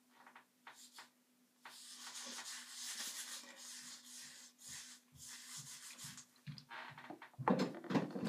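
Gloved hands rubbing hair dye through wet hair, an on-and-off rustling rub over a faint steady hum, with a louder noise near the end.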